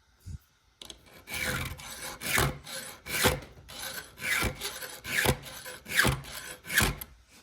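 A file rasping in about seven strokes, roughly one a second, across the steel cutter tooth of a saw chain, hogging out the gullet to give the cutter more hook. A light knock comes just before the strokes begin.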